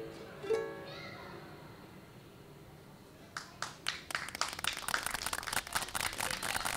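A ukulele strums the last few chords of a song, and the final chord rings out and fades. About three seconds in, a few claps start and quickly grow into steady applause from a small audience.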